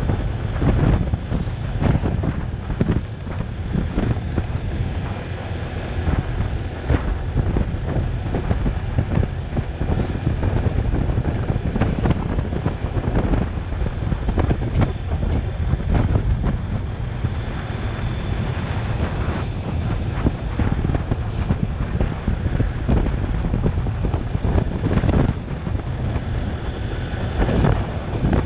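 Wind buffeting the microphone of a Honda automatic scooter in motion: a dense, gusting low rumble, with the scooter's engine and road noise underneath.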